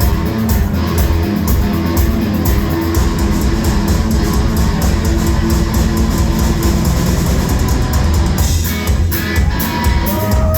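Loud rock music: electric guitar over a driving drum kit.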